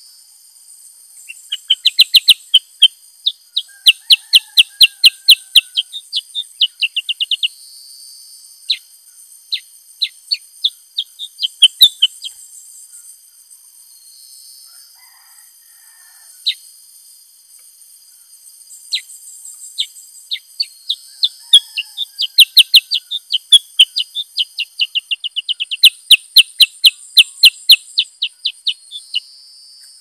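Black-headed bulbul singing: long runs of sharp, rapid chipping notes, several a second, in three bouts, with a few short whistled notes between. The song is a display of its learned repertoire of other birds' calls.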